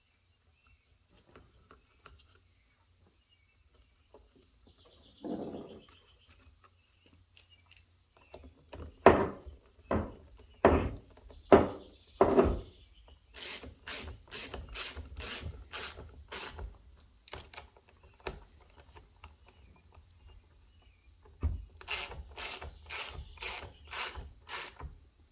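Ratchet wrench clicking in two runs of evenly spaced clicks, about two a second, as the 8mm carburetor mounting nuts are run down. A few heavier knocks come before the first run.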